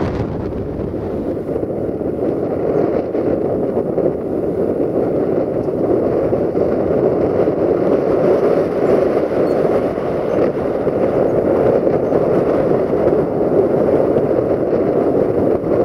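Steady rumble of an LDE2100 (060-DA) diesel-electric locomotive's Sulzer engine as it hauls an intermodal container freight train toward the microphone.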